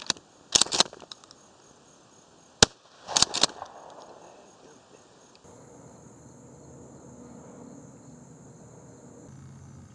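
A shotgun fires once, a single sharp report about two and a half seconds in, with clicks and knocks of the gun being handled just before and after it.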